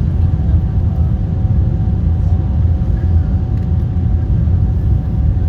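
Steady low rumble of an Airbus A340 airliner in motion, with a faint steady tone above it.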